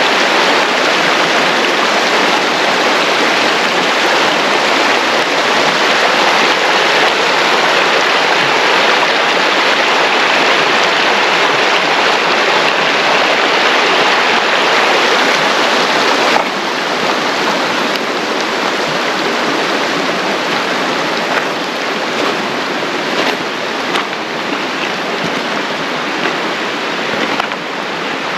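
Steady rushing noise of flowing water. It drops a little and changes abruptly about sixteen seconds in.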